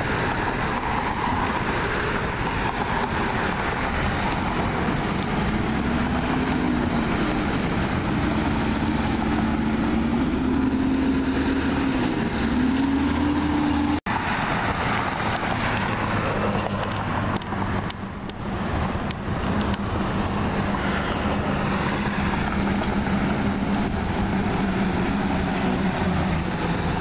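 Diesel garbage trucks driving along a street: an engine pulling away with its tone rising and dropping several times as it shifts up through the gears. About halfway through this gives way to the steady drone of more trucks and passing cars approaching.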